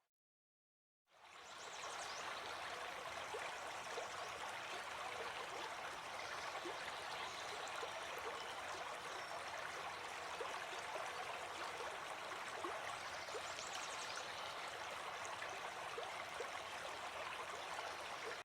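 Stream water flowing steadily. It comes in about a second in, after a moment of silence, and keeps an even level.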